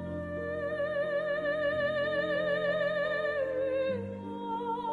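Music: a long held note with vibrato over steady sustained accompaniment, moving to a higher wavering note about four seconds in.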